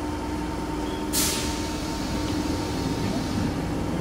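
Onboard sound of an Osaka Metro 66 series train with Toshiba IGBT traction equipment: a steady low rumble with an even hum and whine. About a second in, a loud hiss of air starts and fades over about two seconds.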